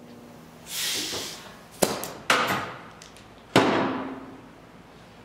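A brief rushing swish, then three sharp knocks, the last one loudest with a short ringing tail.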